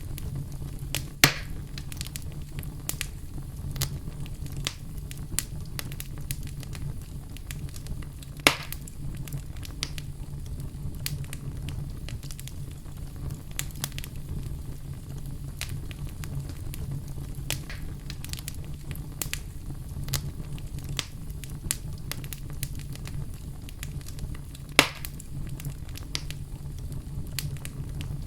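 Campfire burning with a steady low rumble and frequent small crackles, and three louder pops at about one, eight and twenty-five seconds in.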